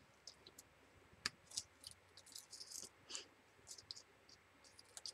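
Faint, scattered crinkles and ticks of a strip of patterned paper being handled as the liner is peeled off its double-sided tape.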